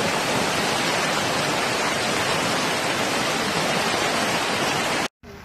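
Floodwater rushing fast over a road, a loud steady roar of water that cuts off suddenly near the end.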